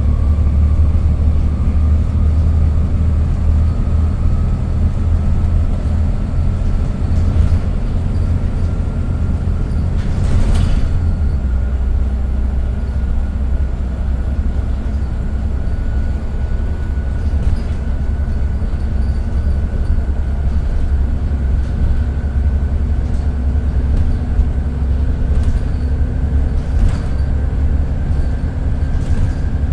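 Volvo B7TL double-decker bus running on the road, heard from inside: a steady low engine and road rumble with a thin whine that climbs slowly in pitch. There is a knock about ten seconds in and light rattles of the body.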